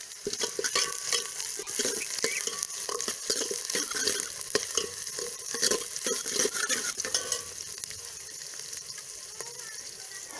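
Sliced onions and green chillies frying in hot oil in a metal pot, sizzling, while a metal ladle stirs and scrapes against the pot in quick strokes. The stirring stops about seven seconds in, leaving only the sizzle.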